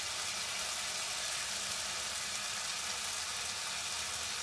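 Okra and onion masala sizzling steadily in hot oil in a pan, the last of the tamarind water just added cooking off in it.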